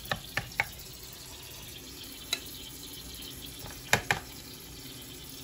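A metal spoon clinking against the glass bowl of a food chopper as chopped salad is scooped out: three quick taps in the first second, one more a little past two seconds, and two close together about four seconds in, over a faint steady hiss.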